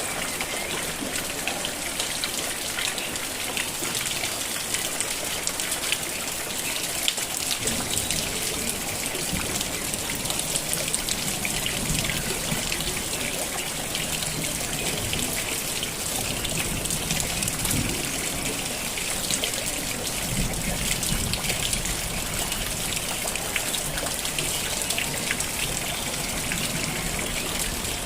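Steady rain falling, with many separate drops ticking through a continuous hiss.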